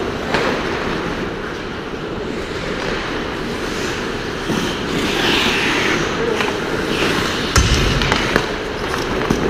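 Ice hockey play close behind the goal: skate blades scraping the ice and sharp clacks of sticks and puck, with a longer scraping hiss about five seconds in and a heavy thud near the camera about seven and a half seconds in.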